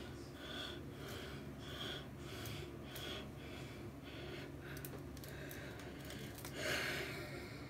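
A hairbrush drawn repeatedly through damp hair to detangle it, in short swishing strokes about twice a second, with one louder stroke near the end.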